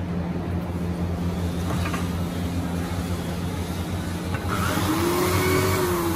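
Steady low machine hum, with a brief tone that rises and falls about five seconds in.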